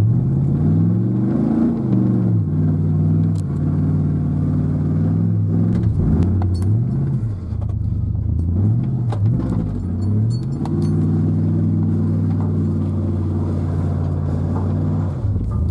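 Four-wheel-drive truck engine revving hard under load while trying to power out of a snowy, icy ditch. Its pitch rises and falls several times, with scattered knocks and clicks in the middle, then holds steady and high for a few seconds near the end.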